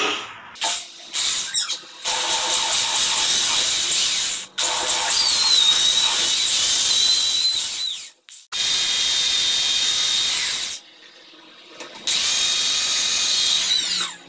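Corded electric drill boring a hole into ceramic wall tile. It gives a few quick starts at first, then runs in four long spells of two to four seconds each with short stops between, with a high whine.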